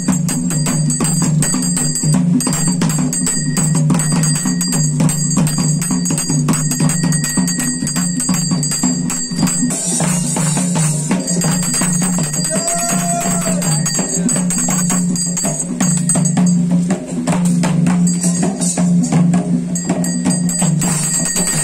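Traditional ritual percussion music: fast, continuous drumming with ringing, jingling cymbals over a steady low drone.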